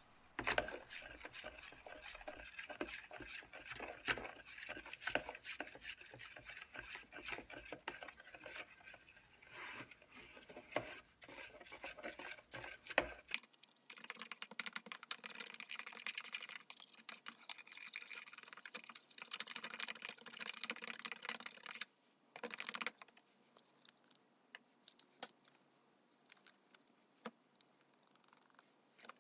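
Stir stick scraping and tapping around a cup of pigmented epoxy as it is mixed, a dense run of small clicks and scrapes. About thirteen seconds in the sound changes abruptly to a fainter, hissier stretch of scattered light ticks.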